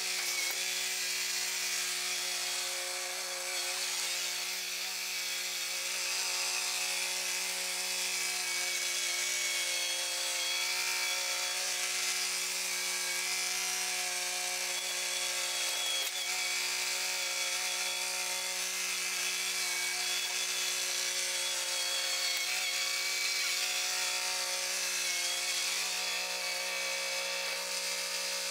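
Kubota compact tractor's diesel engine running steadily while its front loader is worked.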